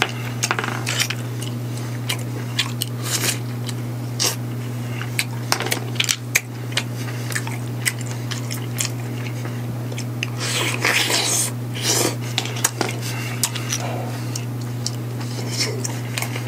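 Steamed Manila clam shells clicking and clinking against each other and the pan as clams are picked up and opened by hand, with a few spells of wet slurping and chewing as the meat is sucked from the shells.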